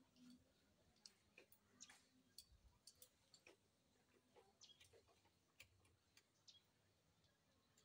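Faint, irregular metallic clicks and ticks of a timing chain and small tools being handled on a stripped engine block.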